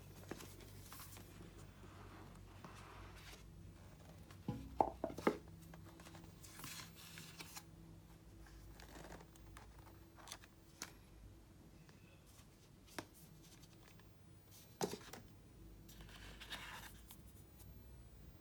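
Unboxing handling noises from the watch's packaging: soft paper-and-cardboard rustles and small clicks, with a quick run of sharper knocks about five seconds in and another single knock near fifteen seconds.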